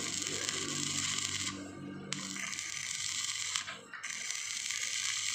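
Stick-welding arc crackling and sizzling as a rod electrode welds thin steel square tube. The arc stops and is restruck twice, so the weld goes down in three short stitches of crackle.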